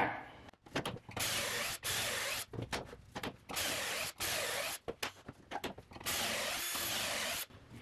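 Cordless drill with a stepped pocket-hole bit boring into a pine board through the jig's drill guide. It runs in a quick series of short bursts, about one a second, with clicks between them and a longer burst near the end.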